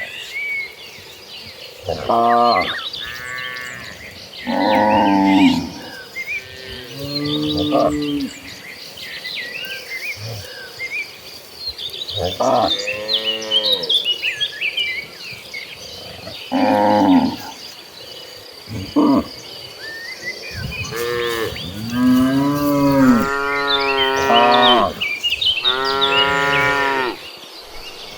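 Cattle in a herd mooing again and again, a dozen or so calls of half a second to two seconds each from different animals, coming thicker and overlapping near the end. Birds chirp faintly, with a thin steady insect drone.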